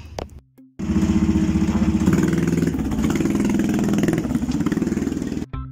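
Racing go-kart's small engine running as the kart is driven, its note wavering a little. It starts suddenly about a second in and cuts off near the end.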